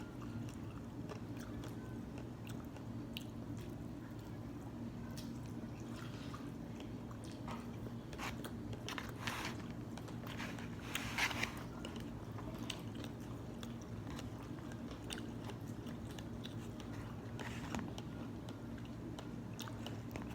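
A person chewing and biting takeout noodles, chicken and vegetables close to the microphone, with scattered short crunchy and wet bites, the loudest about halfway through, over a steady low hum.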